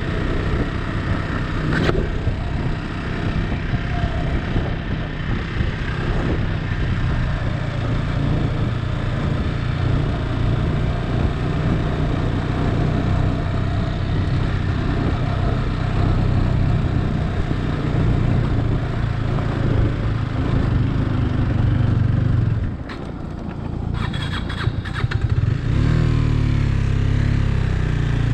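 Motorcycle engine running steadily as the bike rides along a rough gravel road, with wind and road noise over it. About 23 seconds in the engine eases off briefly, with a few clicks, then settles into a steady note again.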